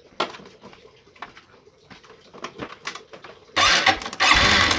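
A few light clicks, then a Honda Revo Absolute's single-cylinder four-stroke engine starts about three and a half seconds in, dips briefly and catches, running with a loud rapid clatter. The clatter comes from the valve train and a slack cam chain, with the valve cover off and no cam chain tensioner in place.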